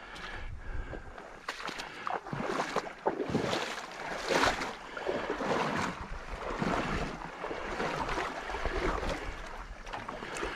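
Paddle strokes swishing and splashing through the water of a pond beside an aluminum canoe, about one stroke a second, with some wind rumble on the microphone.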